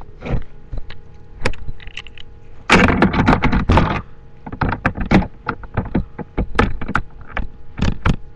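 Keys on a keyring jangling, with a string of sharp clicks and knocks, as a flash drive on the ring is handled and plugged into a laptop's USB port. A longer, louder jangle comes about three seconds in.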